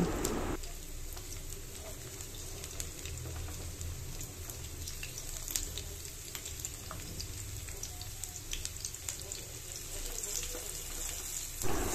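Chopped garlic and chilli sizzling in hot oil in a nonstick frying pan: a steady fine hiss scattered with many small crackles and pops.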